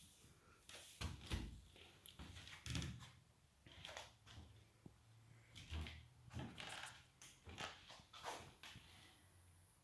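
Faint, irregular knocks and rustles, like objects being handled and set down, over a faint steady low hum.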